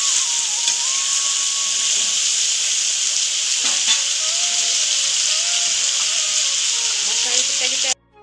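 Cubed potatoes and squash frying in hot oil in a wok: a loud, steady sizzle, with a single knock about four seconds in. The sizzle cuts off abruptly near the end.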